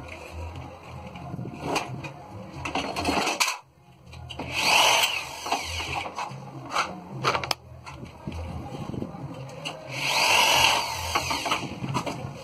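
Corded electric drill driving screws into a galvanised steel frame, in two short runs about four and ten seconds in, each with a rising and falling motor whine. Scattered clicks and knocks sound between the runs.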